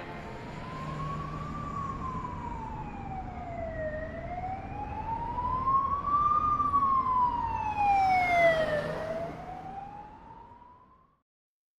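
Emergency-vehicle siren wailing in slow sweeps that rise and fall, over a low rumble. It grows louder, then fades away.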